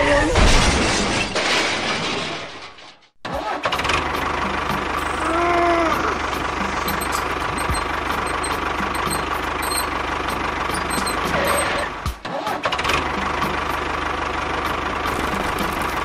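Tractor engine running steadily. It cuts out about three seconds in, picks up again at once, and dips briefly near twelve seconds.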